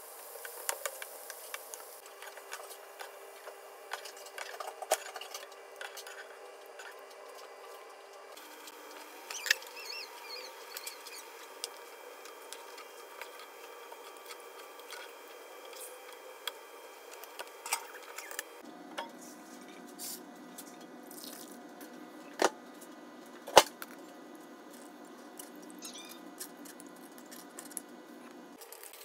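Kitchen sounds from several cut-together clips: onions sizzling in hot oil at first, then a faint steady hiss with scattered small clicks and taps of kitchenware, and two sharp knocks a little over a second apart in the last third.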